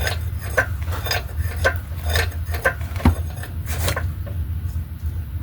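Repeated light metal-on-metal clinks and scraping, roughly two a second, as the transmission is worked against the engine while its input shaft fails to seat in the torque converter. A steady low hum runs underneath.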